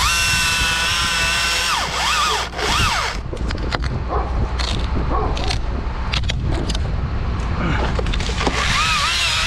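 Small two-stroke chainsaw revving high and cutting, its pitch sagging and recovering as the bar bites into the wood. Under it runs the steady drone of the bucket truck's engine, with several sharp cracks and knocks in the middle.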